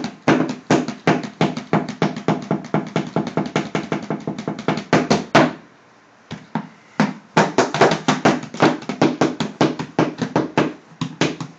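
Quick drumming on an empty cardboard box with a plastic toy rake and a stick, about five hollow hits a second. The hits pause for about a second and a half midway, then start again.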